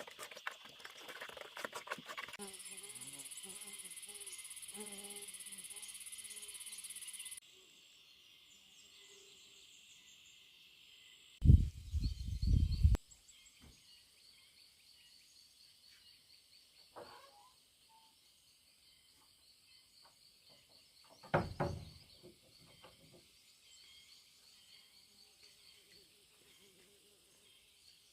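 Insects chirring steadily in a high buzz. About seven seconds in it cuts off to a fainter, pulsing insect trill. Two short loud low rumbles come through, one near the middle and one about two-thirds of the way through.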